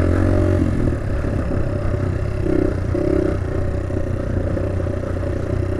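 Small motorbike engine held at wide throttle while riding, a steady drone whose pitch wavers a little, over a constant rushing noise.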